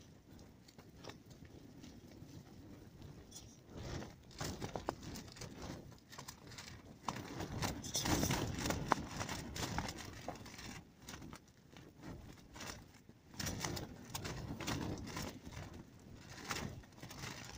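Tent fabric flapping and crackling in gusts of wind, in irregular snaps and rattles that surge loudest about eight seconds in and again near the end.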